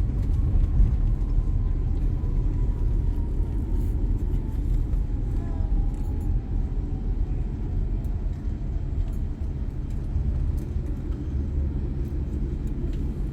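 Boeing 787-9 Dreamliner with GEnx-1B engines during landing: a steady low rumble, with a faint whine slowly falling in pitch.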